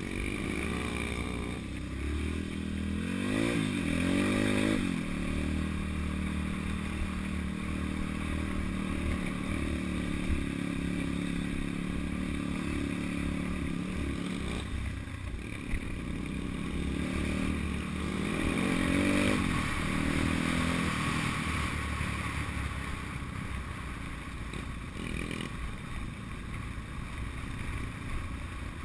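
Pitbike engine running and revving up and down over a rough dirt trail. Its pitch rises twice, about three seconds in and again around eighteen seconds, with a few knocks from the bumps.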